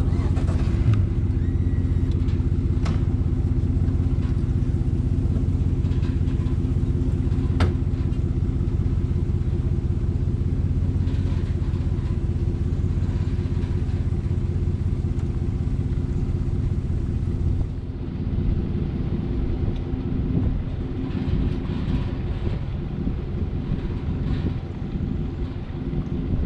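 An engine running steadily at a constant speed, with a deep, even hum. About two-thirds of the way through it drops in level and turns rougher and less even. A few sharp clicks or knocks come over it early on.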